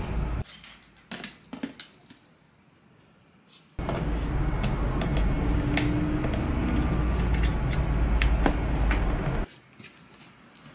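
Light clicks and taps from a paper lantern and the thin stick inside its ribbed frame being handled. A low rumble of background noise cuts out just after the start, comes back abruptly about four seconds in, and stops again near the end.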